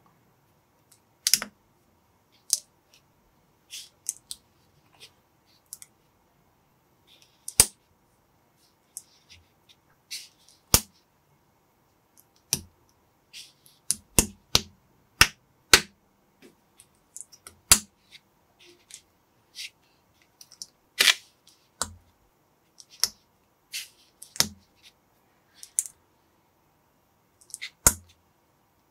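Small plastic building bricks clicking as they are pressed and snapped together by hand: sharp, irregular clicks, sometimes two or three in quick succession, with short pauses between.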